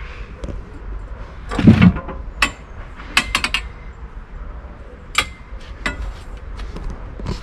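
Metal Bimini frame bars clanking and clicking as they are handled and fitted: a louder knock about a second and a half in, then scattered sharp clicks, including a quick run of them about three seconds in.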